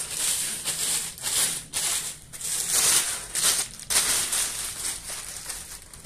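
Clear plastic bag crinkling and rustling in irregular bursts as an air rifle with a synthetic stock is pulled out of it.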